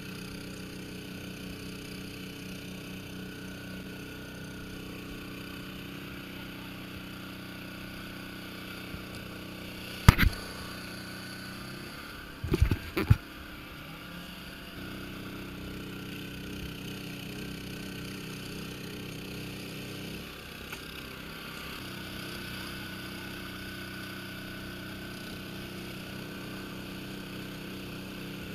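A motor hums steadily throughout, with a sharp knock about ten seconds in and a quick cluster of knocks a couple of seconds later.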